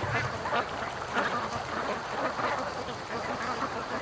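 A flock of domestic ducks quacking in the distance, many short calls overlapping.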